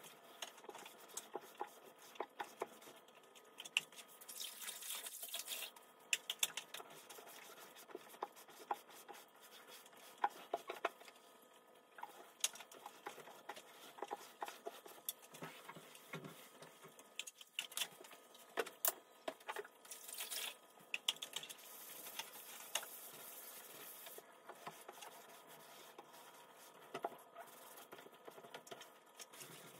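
Cloth scrubbing and wiping along the top of kitchen cabinets, with many small knocks and taps scattered throughout. Two longer stretches of rubbing stand out, about four seconds in and around twenty seconds in.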